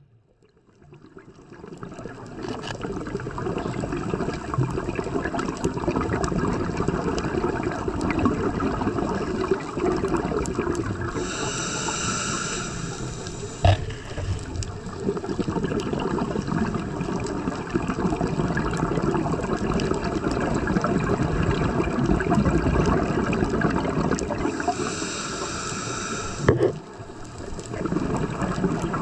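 Underwater sound around a scuba diver: a steady rush of water and bubbling that fades in over the first two seconds, with two hisses of about two seconds each, one near the middle and one near the end, like a regulator breath.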